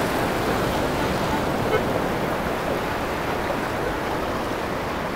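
Ocean surf washing on the beach, a steady rushing noise.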